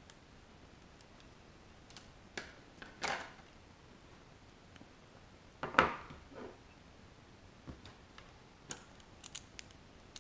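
Hands handling wires, tools and a small metal tin of solder paste on a wooden table: scattered light clicks and knocks, with a louder knock about six seconds in.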